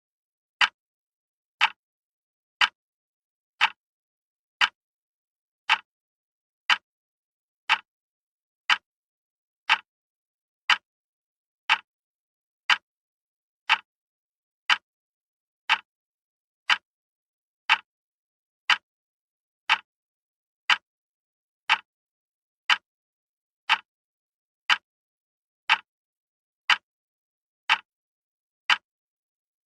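Wall clock ticking steadily, one sharp tick about every second with silence between.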